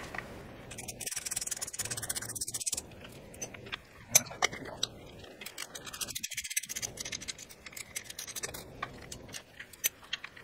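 Small hand ratchet with an 8 mm socket clicking in quick runs as the bolts of a plastic motorcycle skid plate are backed out, with scattered metal clinks and light scraping between the runs.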